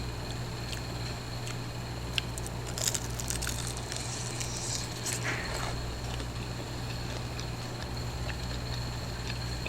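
Crispy fried chicken wings being bitten and chewed: scattered crunches and clicks, the densest cluster about three seconds in, over a steady low hum.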